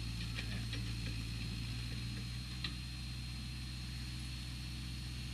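Small tracked excavator's diesel engine running steadily with a low hum, a thin steady high whine above it, and a few faint clicks.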